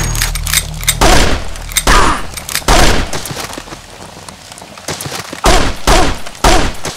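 Gunfire sound effects in a film shootout: three loud shots about a second apart in the first three seconds, a quieter spell, then three more shots in quick succession, about half a second apart, near the end.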